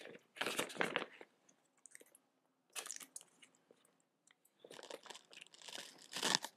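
Plastic of a Scrubba wash bag crinkling and rustling as it is handled, in three bursts, the last the longest.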